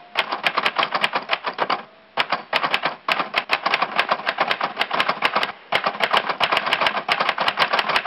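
Fast typing on a computer keyboard: rapid key clicks in runs of one to two seconds, broken by brief pauses about two, three and six seconds in.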